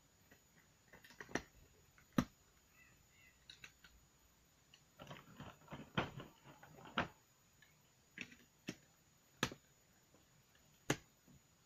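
Scattered sharp clicks and taps of plastic Snap Circuits pieces being handled and pressed onto the plastic base grid, with some soft rustling in between.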